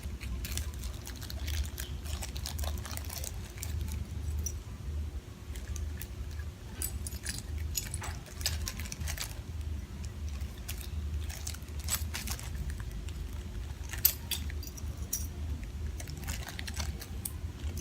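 Tiny plastic doll-kitchen pieces clicking and clinking at irregular intervals as they are handled and dropped into a small container, one sharper click about two-thirds of the way through, over a steady low hum.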